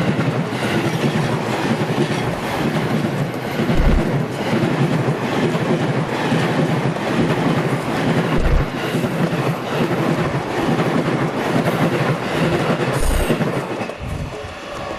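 JR East Tokaido Line electric train passing close by, its wheels clacking over the rail joints, with a deep thump every few seconds and a brief high wheel squeal about 13 seconds in. The sound starts to fade near the end.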